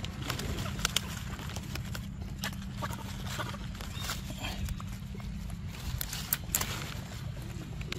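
A macaque eating fruit close to the microphone: irregular smacking and chewing clicks.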